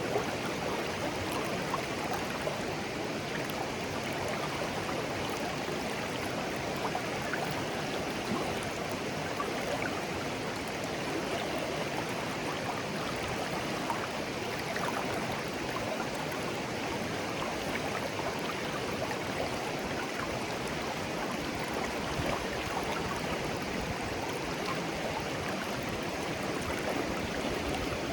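A shallow clear stream flowing gently over stones, a steady babbling and trickling of water.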